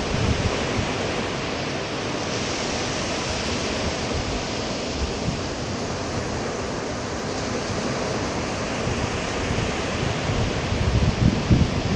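Sea waves washing steadily onto the shore, with wind buffeting the microphone in low gusts near the end.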